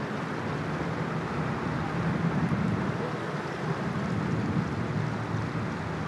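Steady outdoor background noise: an even low rumble and hiss with no distinct events.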